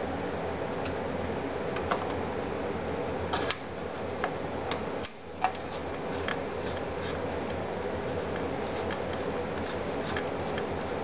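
Small scattered clicks and taps of computer parts being handled over a steady fan-like hum, with a few louder clicks between about two and five and a half seconds in.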